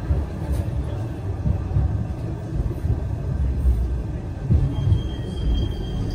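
Blackpool tram running along its rails: a steady low rumble.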